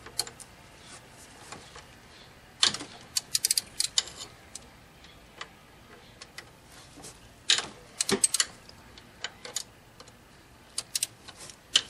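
Ratchet wrench with an 8 mm socket clicking as the throttle body mounting bolts are loosened. The clicks come in two quick bursts a few seconds apart, then a few scattered clicks.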